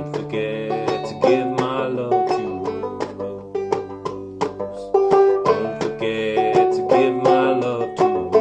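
Tenor banjo played clawhammer style: a steady run of sharply struck, ringing notes and strums carrying a country tune.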